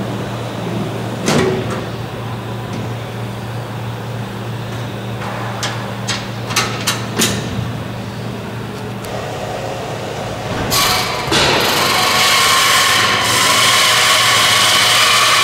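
A few sharp knocks about a second in and a quick run of clicks and taps midway, over a steady hum, then about ten and a half seconds in a loud, steady power-tool noise starts and keeps going.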